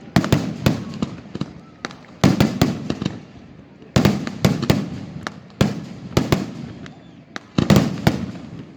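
Fireworks going off in quick succession: clusters of sharp bangs about every second, each cluster fading into a low rumbling tail.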